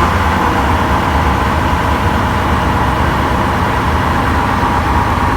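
Truck engine idling steadily with a deep, even rumble.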